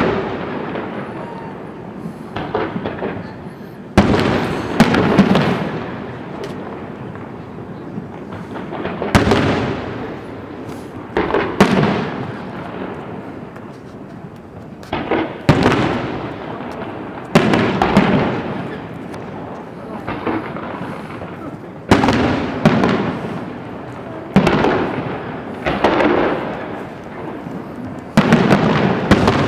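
Fireworks display: aerial shells bursting in a steady series, a loud bang roughly every two seconds, each followed by a fading rumble and crackle.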